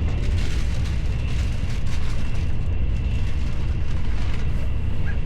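Steady low rumble of a Shinkansen train running at speed, heard from inside the passenger car, with a faint steady high whine.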